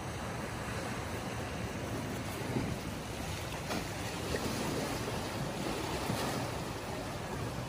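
Small sea waves breaking and washing among shoreline rocks, a steady surf that swells a little in the middle, with wind buffeting the microphone.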